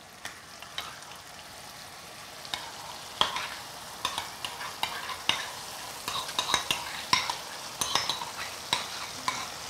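Bacon and onion frying in a stainless steel pan, a steady sizzle, while a metal spoon scrapes and clicks as sour cream is spooned from a ceramic bowl into the pan. The clicks come thick and fast from about two and a half seconds in.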